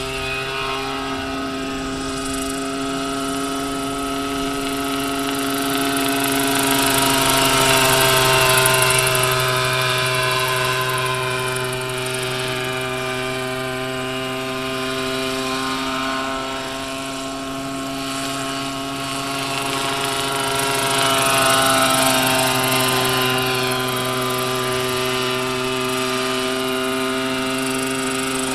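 Large radio-controlled scale model Bell 47G helicopter in flight: a steady, pitched drone from its rotors and drive. It swells louder twice as the model passes closer, with a slight shift in pitch each time.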